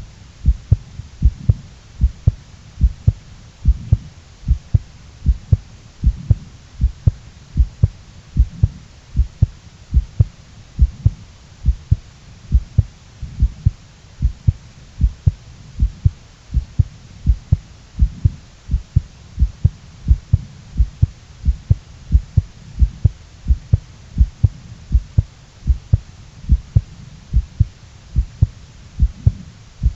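A human heartbeat beating steadily and evenly, each beat a pair of low thumps (lub-dub).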